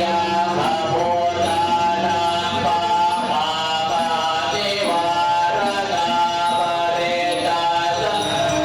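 Background music of chanting voices over a steady low drone.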